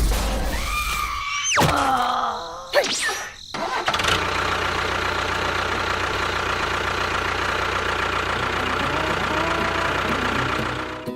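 Engine starting and then running steadily from about four seconds in. Before it come a few brief sounds that slide up and down in pitch.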